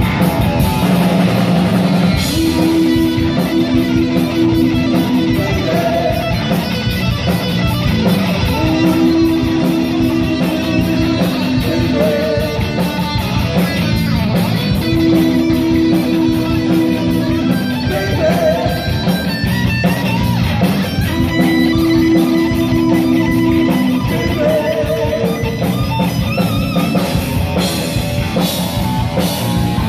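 Heavy metal band playing live: electric guitar repeating a phrase of held notes about every six seconds, with short wavering notes between, over bass guitar and a drum kit.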